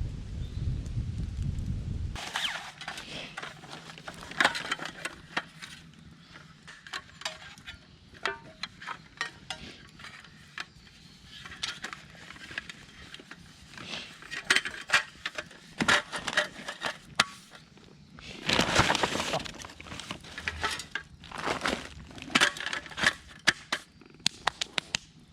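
Wood campfire crackling, with irregular sharp cracks and pops, and a short noisy rush about two-thirds of the way through. A low rumble fills the first two seconds.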